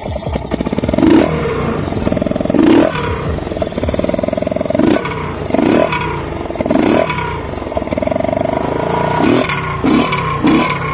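Tuned Yamaha NMAX 155 scooter, bored to about 157 cc, its single-cylinder four-stroke engine running at a standstill through a racing exhaust. It is given a series of short throttle blips, about eight, each rising in revs and dropping back to idle.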